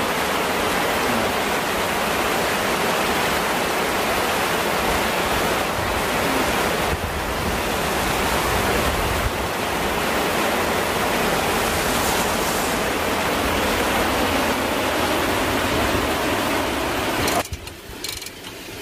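Heavy rain pouring down as a steady, even hiss that cuts off suddenly near the end.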